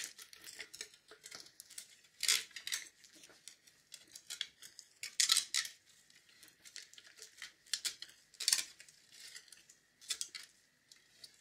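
Aluminium foil crinkling in irregular crisp bursts as it is pressed and folded against the inside of a glass jar, the loudest crackles coming about two, five and eight seconds in and thinning out near the end.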